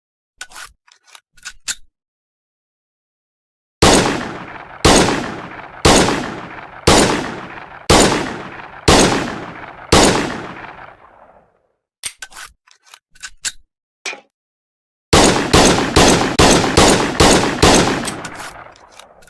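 M1911 .45 ACP pistol: a few light metallic clicks of handling, then seven shots about a second apart, each ringing out in a long echo. After more clicks comes a fast string of shots, about three a second.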